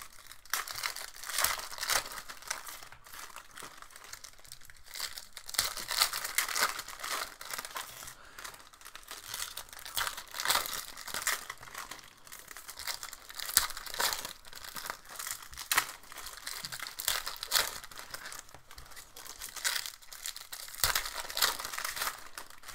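Plastic wrapping of a hockey trading-card box and its card packs being torn open and crinkled by hand, rustling on and off.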